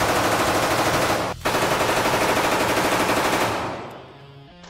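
Thompson submachine gun firing long bursts on full auto, rapid shots running together. There is a brief break about a second and a half in, and the firing fades away near the end.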